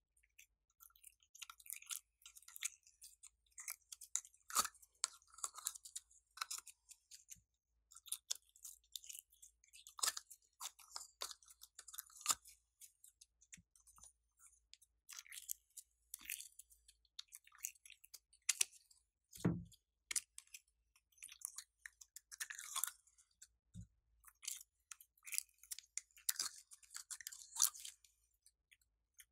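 Glossy slime mixed with small foam beads being squished and kneaded by hand, giving an irregular run of wet crackles and pops, with one soft thud a little past two-thirds of the way through.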